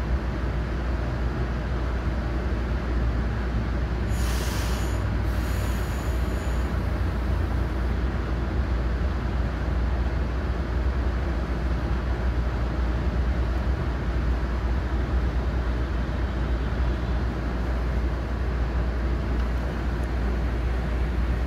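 Steady low rumble of a MARC commuter train heard from inside a passenger car. About four seconds in, a brief high hiss lasts around two seconds.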